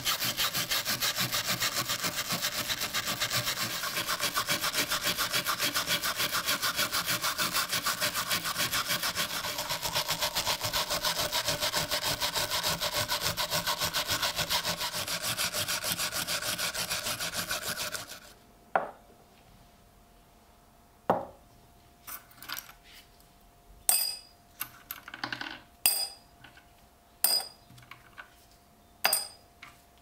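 Hand wire brush scrubbing rust off a rusty switchblade blade and liner plate on a wooden board, in fast back-and-forth strokes; it stops suddenly about two-thirds of the way through. Then six or seven sharp clinks with a short ring as small knife parts are dropped one by one into a glass jar.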